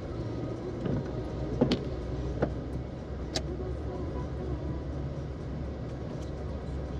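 Car driving along, a steady low engine and road rumble, with three sharp clicks between about one and a half and three and a half seconds in.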